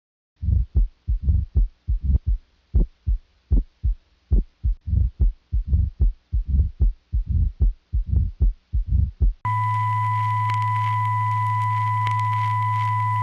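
Heartbeat sound effect: low thumps in quick pairs, repeating for about nine seconds. Then a steady high-pitched tone over a low hum cuts in abruptly and holds.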